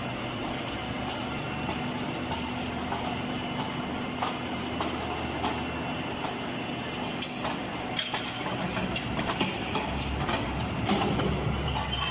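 Hot-bar rolling line running: roller conveyor and mill machinery keep up a steady industrial hum and rumble, with scattered knocks and clanks as a red-hot bar is carried along the rollers and fed into the mill stands.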